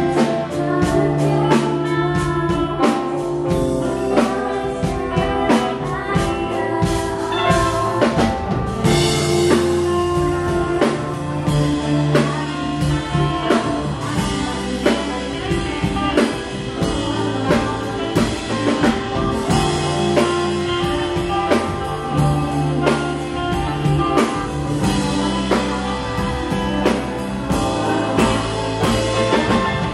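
Live band playing a song: guitar over a steady drum-kit beat.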